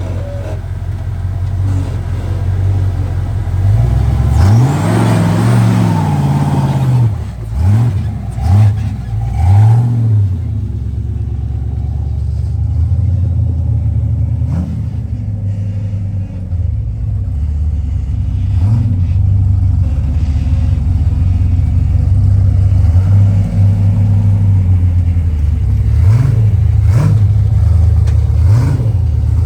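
Rock crawler's engine running at low revs and revved up and down several times in quick succession about four to ten seconds in, then running steadily with a few short blips of throttle near the end.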